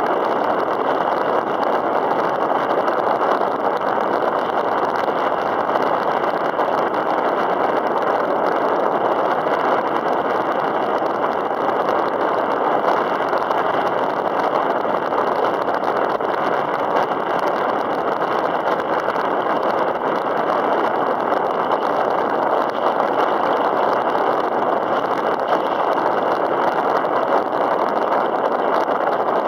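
Steady rushing of wind and choppy open water around a kayak, an even wash with no strokes or pauses.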